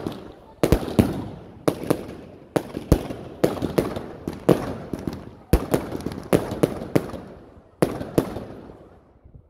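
Prestige 'Lightning Strike' firework cake firing a rapid string of shots, sharp bangs about one or two a second with crackling between them. The shots stop about a second before the end and the crackle dies away.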